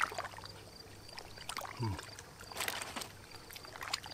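A man eating a bite of fish off a fork: a few short mouth and utensil sounds and a brief low "mm" a little under two seconds in, over a steady low hum.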